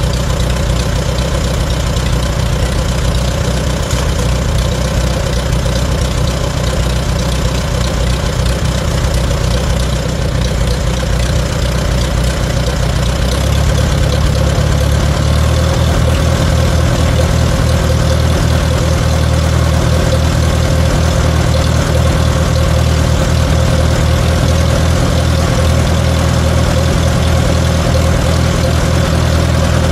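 Farmall A tractor's four-cylinder gasoline engine running steadily on its freshly rebuilt Zenith carburetor, with the oil-bath air cleaner just cleaned of water and refilled with oil after the engine had been running rich and rough for lack of air. About 13 seconds in its note shifts and gets a little louder, then holds steady.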